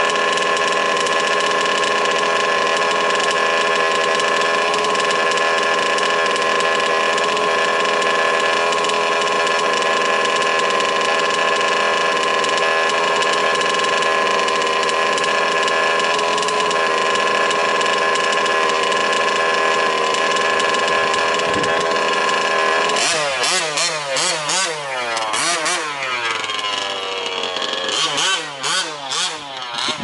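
Small two-stroke petrol engines of 1/5-scale RC off-road cars: one idling at a steady pitch, then from about 23 seconds in, engines revving up and down with pitch rising and falling repeatedly as the cars drive.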